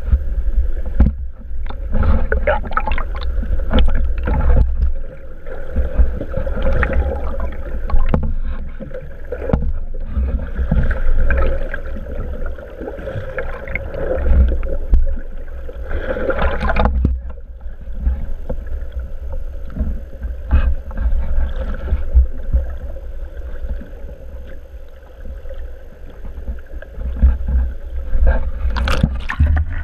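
Muffled water sloshing and gurgling around an underwater camera just below the surface, over a constant low rumble, with irregular short knocks.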